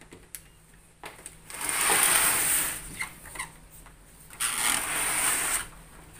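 A large plastic evaporative air cooler scraping and rattling over the floor as it is swung round by hand, in two pushes of about a second each, with a few light knocks between them.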